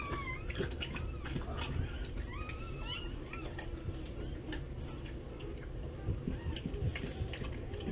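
Newborn mastiff puppies squealing: several short, high cries that rise and fall, mostly in the first three seconds, over a steady low hum. Light clicks and rustling of handling follow in the second half.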